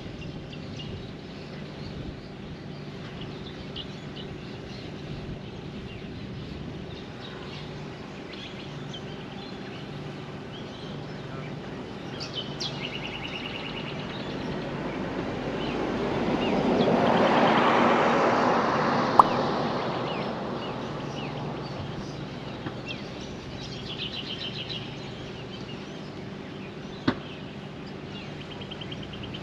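Outdoor ambience with birds chirping over a steady low hum. About midway a passing vehicle swells and fades over several seconds. A sharp click comes near the end.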